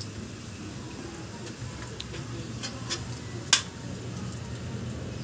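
Metal ladle knocking against an aluminium cooking pot: a few light clicks, then one sharp clink about three and a half seconds in, over a faint steady low hum.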